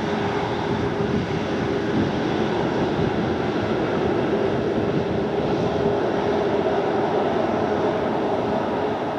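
Steady, continuous engine noise from a large vehicle, with a held tone throughout and a second, higher tone joining about five and a half seconds in.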